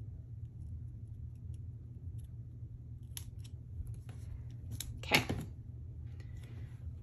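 Small craft scissors snipping a few times through paper or sticker stock, then a louder clack about five seconds in as they are set down on the work table.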